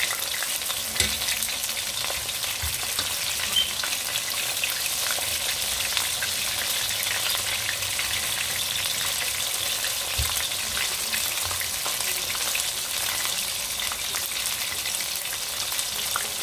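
Chicken wings deep-frying in hot oil on their second fry for crispness: a steady sizzle full of fine crackling. A few light knocks come from metal tongs turning the wings in the pot.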